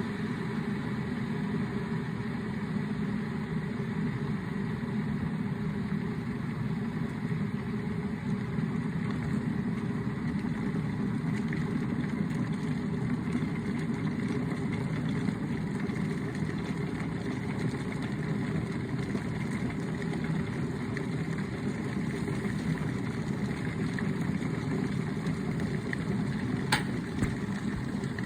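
Kettle boiling: water bubbling with a steady, low rush that stays even throughout. A single sharp click comes near the end.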